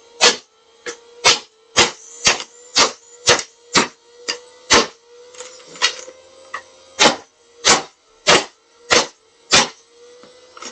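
Sharp knocks about two a second, with a short pause midway, over the steady hum of a small toy vacuum cleaner motor running.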